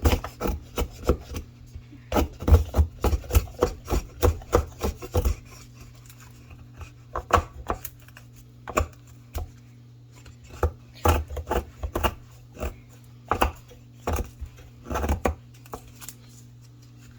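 SOG Aegis FL folding knife's 8Cr13MoV blade shaving and chopping at a piece of wood: quick repeated strokes for about five seconds, then slower, separate strokes.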